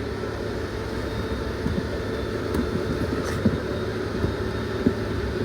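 Steady low running hum of a Peterbilt 367 truck heard inside the cab, with scattered light clicks and taps.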